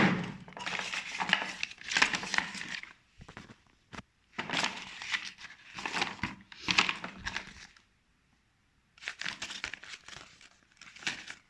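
Packaging rustling and crinkling in three stretches with short pauses, as a power drill's box is unpacked.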